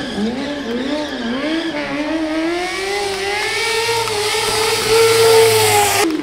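Suzuki GSX-R600 sport motorcycle's four-cylinder engine revved in quick throttle blips, then held at high revs and slowly rising through a long wheelie, loudest near the end before it stops abruptly.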